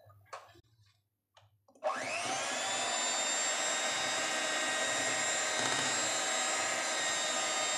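Electric hand mixer switched on about two seconds in, its motor whining up to speed and then running steadily as its twin beaters whisk cake batter in a glass bowl.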